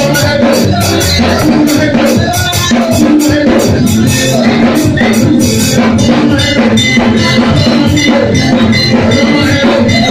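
Loud live gospel praise music through a PA: drums and percussion keeping a steady quick beat, with a man singing lead into a microphone.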